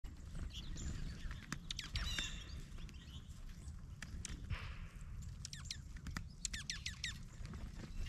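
Small birds calling in quick runs of high, downward-sweeping notes, with scattered sharp taps of a downy woodpecker pecking at peanuts in a wire-mesh feeder.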